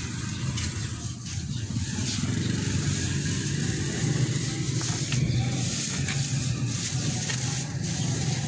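A motor vehicle's engine running steadily: a continuous low rumble with street noise over it.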